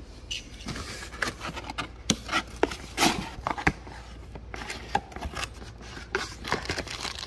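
A cardboard brake-pad box being handled and opened by hand: scattered taps, scrapes and rubs of thin cardboard, with a denser cluster of knocks about three seconds in.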